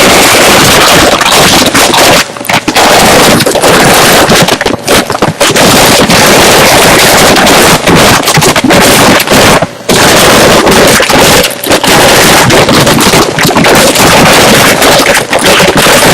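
Potato chips being crunched and chewed right up against the microphone: a very loud, near-continuous crackling crunch with a few brief pauses.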